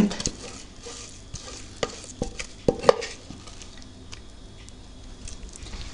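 A utensil spreading thick, freshly cooked homemade cheese paste in a glass baking dish: soft stirring and scraping with scattered clicks against the dish, most of them in the first three seconds.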